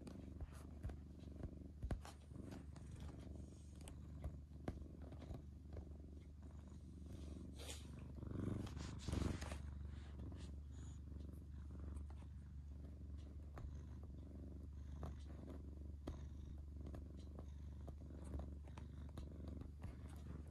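Tabby cat purring steadily, with a brief louder rustle about halfway through.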